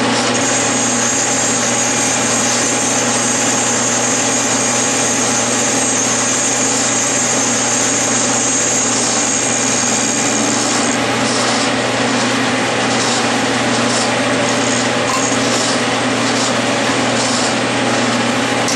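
Clausing metal lathe running at about 800 RPM while its tool, hand-fed on the compound rest, turns a taper on the spinning workpiece in an interrupted cut. There is a steady motor and spindle hum and a high hiss from the cutting that stops about eleven seconds in, giving way to irregular light ticks.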